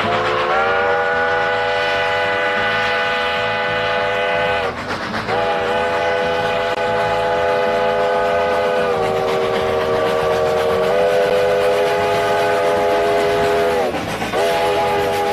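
Multi-chime train whistle sounding long, sustained chord blasts over a moving train's rumble. The pitch sags and breaks off briefly twice, and the chord shifts lower partway through.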